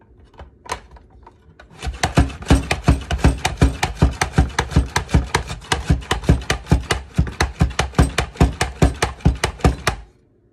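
Upright plunger-style mandoline vegetable chopper clacking rapidly and evenly, about five strokes a second, as its pusher is pumped to dice green peppers through the blade. It starts about two seconds in after a couple of single clicks and stops abruptly near the end.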